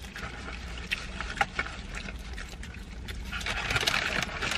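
Eating noises: chewing along with the crinkle and rustle of paper and foil fast-food wrappers, a scatter of small crackles that grows denser and louder a little past halfway.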